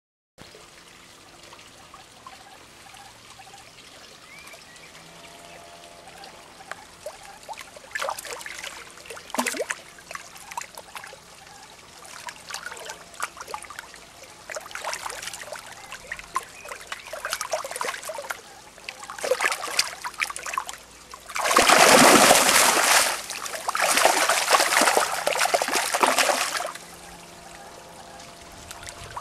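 Ornamental pond fish splashing and thrashing in shallow water in a spawning chase. Scattered splashes build to a loud churning burst about three-quarters of the way through, followed by several more seconds of splashing.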